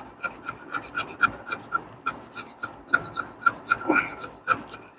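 Zippo fire starting multi-tool's scraper rasped back and forth along a piece of wood with light pressure, shaving off tinder. Quick, even strokes about four a second, each with a brief high note.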